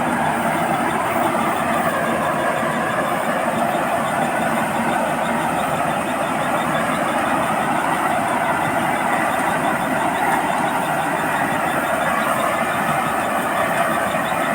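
Combine harvester running steadily, a loud, even machine noise that does not change.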